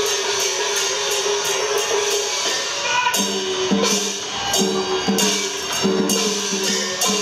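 Instrumental music accompanying a string-puppet show: a steady run of percussion strikes, about three a second, joined by a melody that comes in about three seconds in.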